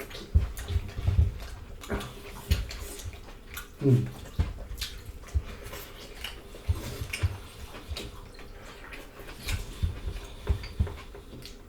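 Close-miked wet chewing and lip-smacking from people eating, a run of irregular short smacks and clicks, with a brief low hum of a voice about four seconds in.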